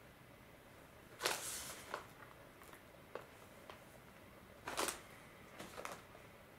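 Cardboard furikake box and sticker packets being handled: two short rustles, about a second in and again near five seconds, with a few light taps and clicks between.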